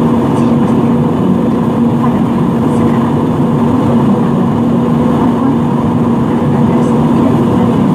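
Steady cabin noise of an Airbus A320-family jet in cruise, heard from a window seat: the even rush of engines and airflow with a steady low hum underneath.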